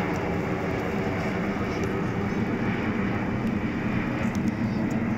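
Steady jet roar from the Blue Impulse team's Kawasaki T-4 jets flying out of sight overhead, swelling slightly near the end.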